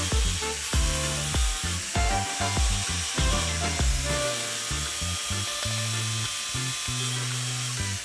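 Angle grinder with an abrasive cut-off disc cutting through the steel latch bolt of a door lock held in a bench vise, a steady high grinding hiss that stops near the end. Background music with a steady beat plays underneath.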